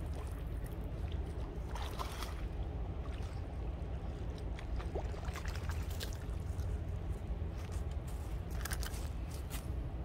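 A hooked bass splashing at the pond's surface as it is reeled in and lifted out onto the bank, in several short splashes, over a steady low rumble.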